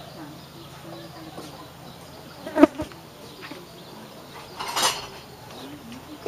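A flying insect buzzing close by, its low drone wavering in pitch as it moves. A short loud sharp sound about two and a half seconds in, and a brief hiss near five seconds.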